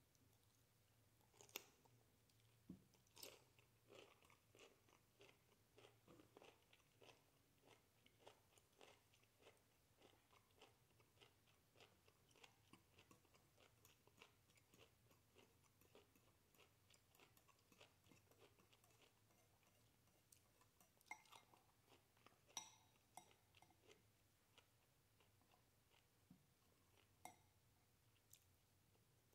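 Faint, close-up chewing of broccoli: a steady run of small clicks about twice a second, with a few sharper clicks from a metal fork against a ceramic bowl.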